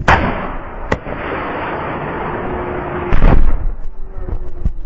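Close heavy-weapon blasts: a loud boom right at the start, a sharp shot about a second in, a rushing noise between them, and an even louder blast a little after three seconds, with one more crack near the end.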